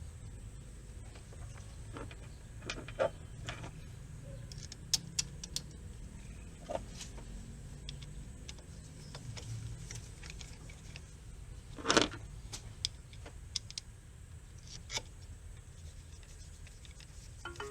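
Scattered light clicks and knocks of hand tools and small parts being handled during the throttle position sensor swap, over a low steady rumble. One sharper knock comes about twelve seconds in.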